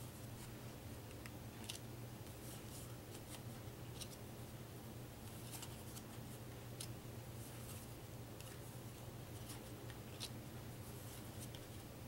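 Rack-O paper cards being slid one at a time off a deck on a wooden tabletop: faint, irregular scrapes and ticks about once a second, over a steady low hum.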